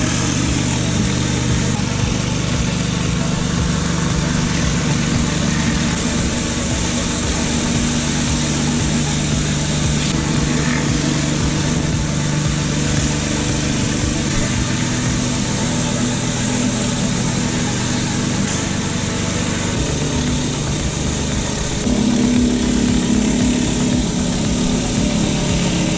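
Engine-driven pressure washer running steadily, with the constant hiss of its water jet on paving. About 22 seconds in, the engine note shifts and gets a little louder.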